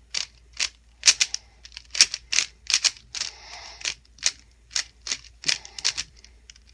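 Plastic Rubik's cube layers turned by hand, clacking with each turn at about two turns a second, with a longer scraping turn a little past the middle: the middle slice and top layer worked through a repeated M2 U2 sequence.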